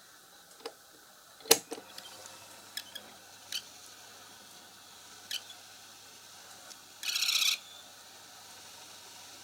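A loud click about one and a half seconds in, then the Yamazen YLT-AK301 electric fan's motor running with its blades removed: a steady low hum with scattered sharp ticks and a short buzzing rattle about seven seconds in. The owner takes these for the fan's abnormal noise, present even with the blades and guard off.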